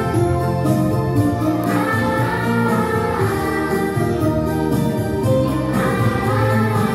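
Young boys singing a song together, with instrumental accompaniment underneath.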